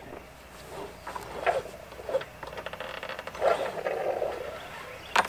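Light rustling and scraping as a lawnmower's handle is handled and tied off with a cord, with a longer scratchy scrape about three and a half seconds in and a sharp click near the end.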